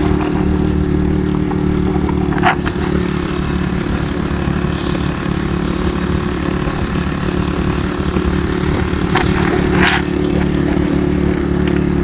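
Motorcycle engine running at a steady, even pitch while riding, with wind rushing over the microphone. There are a couple of brief faint clatters, one early and one near the end.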